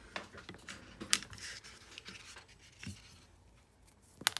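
Plastic clicks and handling noises as a power adapter's plug is fumbled at a USB hub, with a sharp click about a second in and a quick double click near the end.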